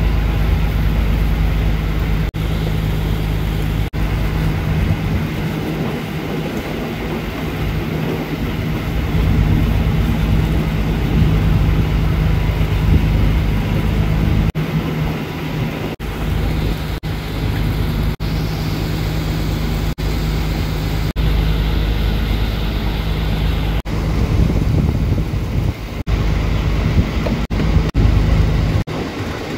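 Fishing boat's engine running with a steady, loud low drone.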